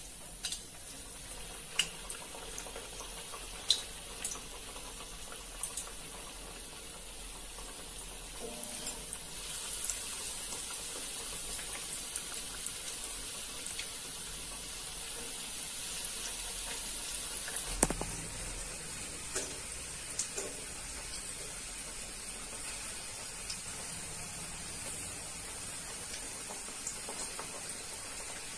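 Breadcrumb-coated egg fingers deep-frying in hot oil in a kadai: a steady high sizzle with scattered pops and crackles, getting a little louder after about nine seconds. A single sharp click, the loudest sound, comes a little past halfway.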